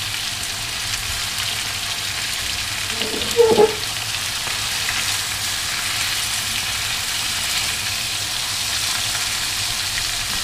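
Chicken thighs in a sugary lemongrass marinade sizzling steadily in hot oil in a wok over medium heat. A short, louder pitched sound comes about three and a half seconds in.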